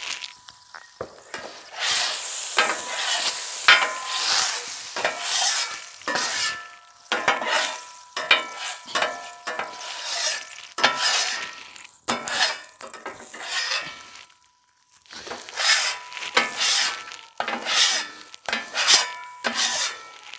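Metal scraper blade scraping a hot flat-top griddle in repeated strokes, with seltzer water sizzling and steaming on the hot plate as it lifts burnt-on grease. The strokes pause briefly about two-thirds of the way through.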